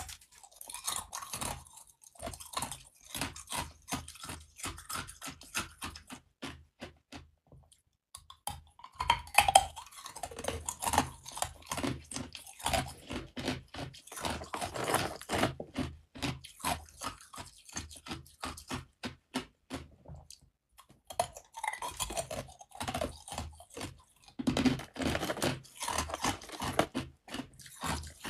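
Hard clear ice cubes being bitten and crunched between the teeth: rapid runs of crisp cracks and crunches, with two brief pauses.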